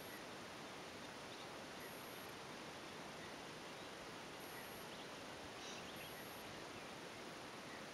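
Faint, steady outdoor background hiss with no distinct events, and a few faint ticks about five and a half seconds in.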